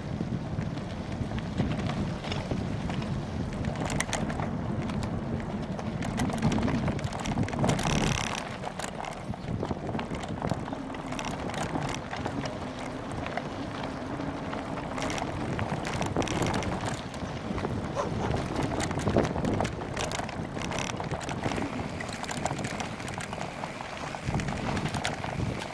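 Bicycle riding over a bumpy trail into a headwind: wind buffets the microphone with a low rumble, heaviest for the first several seconds, while the bike's frame and parts rattle and knock over the bumps.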